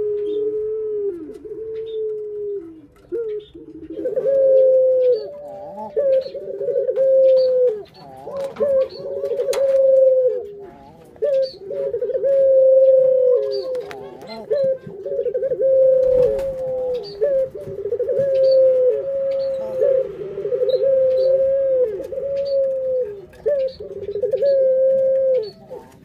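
Ringneck (Barbary) doves cooing: a continuous run of low rolling coos, each about a second long and dropping in pitch at its end, repeating with hardly a break. The coos step up slightly in pitch about four seconds in.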